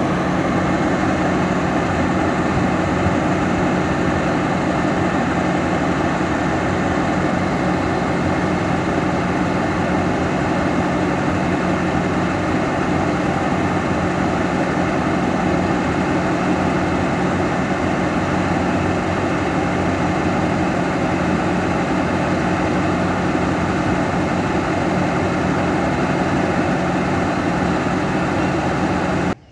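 Alsthom diesel-electric locomotive with a Caterpillar engine idling close by, a loud, steady, even engine drone. It cuts off abruptly near the end.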